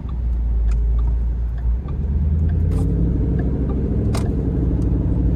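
2013 Ford Mustang GT's 5.0-litre V8 running with a steady, deep low engine note.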